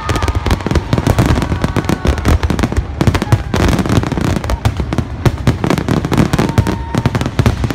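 Fireworks display: a rapid, unbroken barrage of bangs and crackling.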